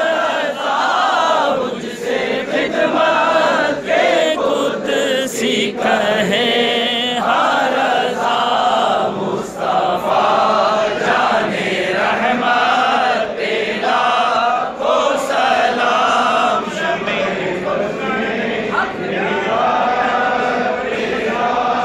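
A large crowd of men chanting together, many voices rising and falling in a sung devotional chant without instruments.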